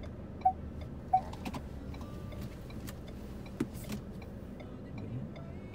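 Steady low hum of a Ford's idling engine heard from inside the cabin during a slow parking manoeuvre, with a light regular ticking and two sharp clicks about half a second and a second in.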